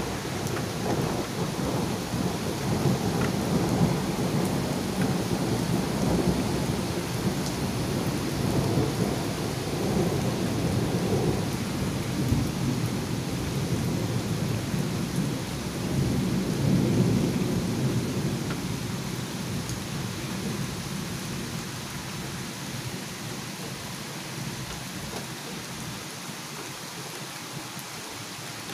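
Rolling thunder rumbling for about twenty seconds, swelling twice and dying away near the end, over the steady hiss of rain.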